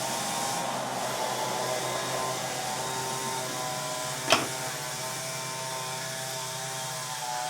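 Small-engine yard equipment running steadily at a distance, a continuous motor hum. A single sharp click about four seconds in.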